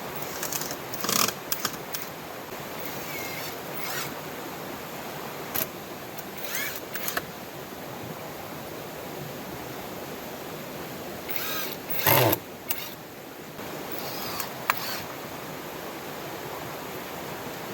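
Steady rush of heavy rain and a flowing river, broken by scattered short sounds, the loudest a brief burst about twelve seconds in.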